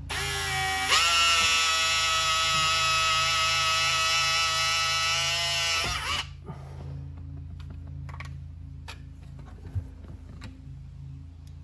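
Cordless drill whining at speed as it works a hole in a fiberglass console: it starts slower, steps up in pitch about a second in, runs steadily for about five seconds, then winds down and stops. A few small clicks follow.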